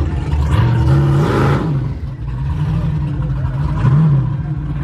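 Vehicle engine running loudly, revving up and back down about a second in and again near the end, with voices of people around.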